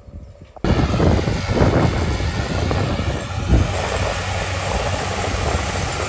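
Tractor working the field with a Simba Cultipress, a loud steady rush of engine and rolling press that starts abruptly about half a second in.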